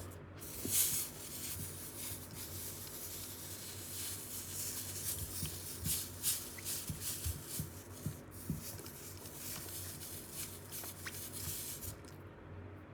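Household iron rubbed back and forth over a wet cloth laid on a sneaker's midsole, a run of irregular rubbing strokes, pressing the creases out of the midsole with heat and moisture.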